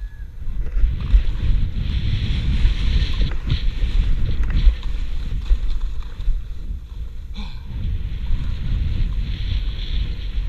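Wind rumbling on the microphone of a skier's action camera, over the hiss and scrape of skis running and turning on packed snow, which swells and fades with the turns.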